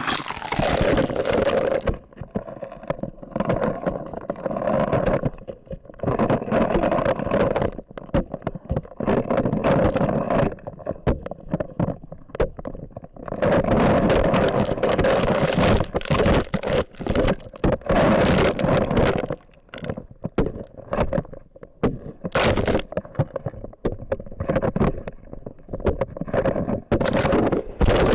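Pond ice being smashed with repeated heavy blows of a long-handled hammer, with ice cracking and chunks of ice and water splashing. Loud and irregular, with a few short lulls.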